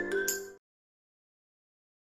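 Background music with bright struck notes over held chords, stopping about half a second in; then complete silence.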